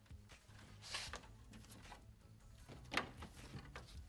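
Faint handling of a plastic truck grille shell as it is fitted by hand: soft rustles and small clicks, with a light click about three seconds in.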